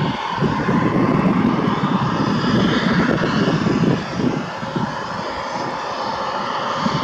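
Airbus A320-214's twin CFM56 turbofan engines running at taxi power as the airliner rolls past: steady jet noise with a low rumble that eases off about four seconds in.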